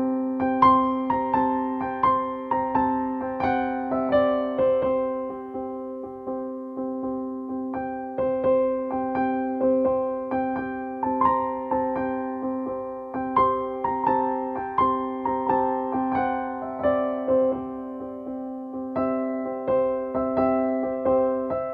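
Background music: a gentle keyboard or electric piano melody of struck notes that ring and fade, over steady held low notes.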